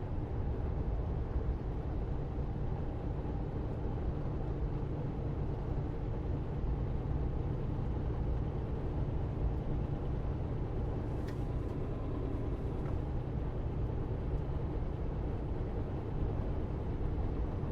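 Semi truck's diesel engine and road noise heard from inside the cab while cruising at a steady speed: a steady low drone with faint engine tones, and one small click about eleven seconds in.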